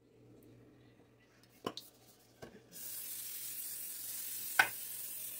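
Aerosol can of PAM cooking spray hissing in one steady spray of about three seconds, starting about halfway in. A few light clicks and taps from handling come before and during it.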